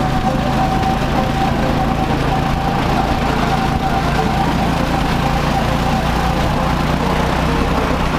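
Ride-on miniature railway train running along its track: a steady low motor drone with a faint held tone above it.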